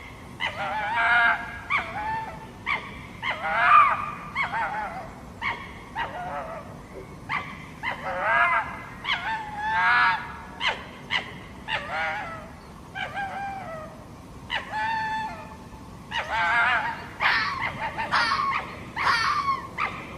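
A fox calling over and over: an irregular run of short barks mixed with longer yelping calls that bend in pitch, a call every half second to second.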